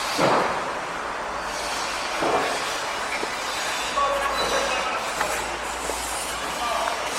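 Construction site noise: a continuous clattering din with high metallic squeals and scrapes, swelling louder every couple of seconds.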